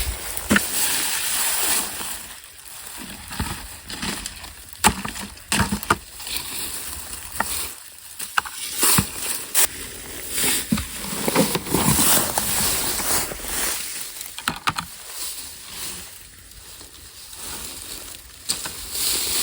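Irregular rustling with scattered sharp clicks and snaps as chestnuts are gathered from the ground.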